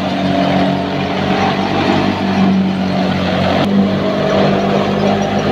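Wheat thresher running steadily at working speed, a loud even machine drone with a low hum, as threshed grain pours out of its outlet.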